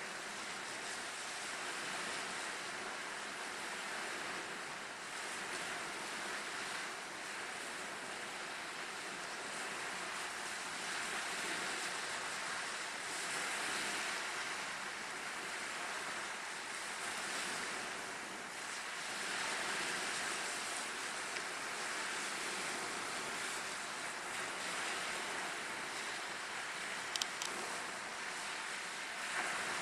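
Wind-driven waves washing and breaking along the shore and against rock jetties, a steady wash of surf that rises and falls every few seconds, with wind buffeting the microphone. Two short clicks near the end.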